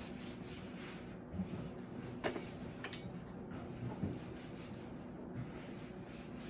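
Ultrasound machine in use: a steady low hum with soft clicks and knocks from its console keys, a sharp click a little after two seconds in, and two brief high beeps within the next second.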